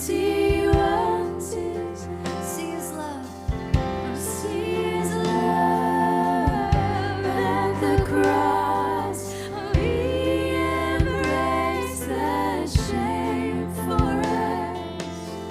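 Live worship music: a woman sings a slow melody with a wavering vibrato over sustained chords, with short percussive hits every second or two.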